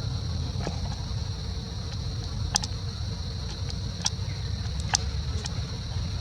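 A steady high-pitched insect drone over a continuous low rumble, with a handful of short sharp clicks or snaps scattered through, the loudest about two and a half and five seconds in.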